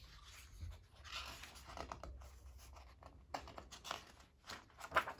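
Pages of a hardcover picture book being handled and turned: faint paper rustling and sliding, with a few short light taps toward the end.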